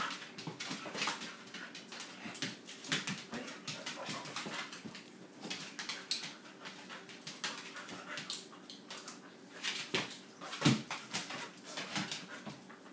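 Dog making short whining sounds during rough play, with many quick clicks and scuffs of its claws and paws on a hard floor, and one louder thump near the end.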